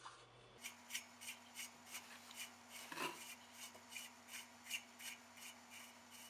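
Faint, repeated scraping strokes, about three a second: the greased threads of a SRAM external bottom bracket cup turning in a steel bike frame's English-thread bottom bracket shell as it is threaded in by hand.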